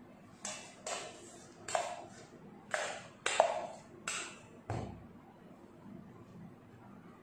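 A metal utensil knocking against a metal kitchen bowl: seven sharp, ringing taps at uneven intervals over the first five seconds, the last with a dull thump.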